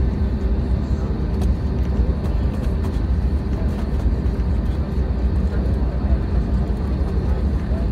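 Airbus A320neo cabin noise while taxiing, with its Pratt & Whitney geared turbofans at idle: a steady low rumble with a steady hum over it.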